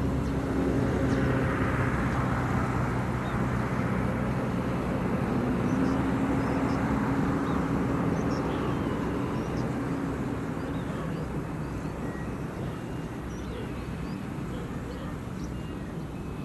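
A motor vehicle's engine running steadily, its pitch shifting a little partway through, then fading away over the last few seconds as it moves off. Faint short chirps of birds or insects sound over it.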